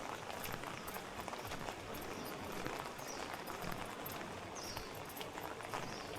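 Rain falling on a city street: a steady hiss with many irregular drip clicks, and footsteps on wet pavement.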